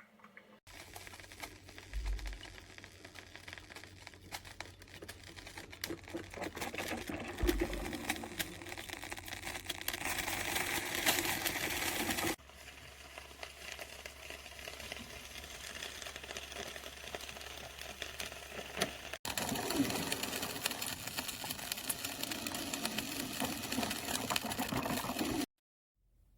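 Braun PureFlavor drip coffee maker brewing, hissing and sputtering with a rapid crackling rattle, heard in several clips that cut in and out abruptly.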